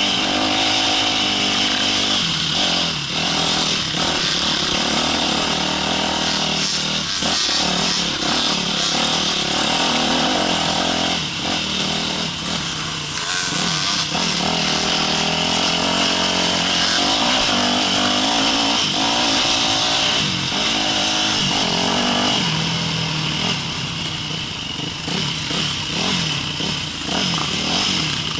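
Yamaha YZ250F dirt bike's single-cylinder four-stroke engine running under way on a rough trail, its revs rising and falling continually as the throttle is worked.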